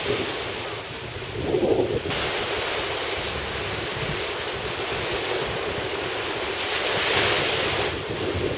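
Small waves breaking and washing up a sandy beach, with wind buffeting the microphone. The surf swells louder about seven seconds in as a wave breaks.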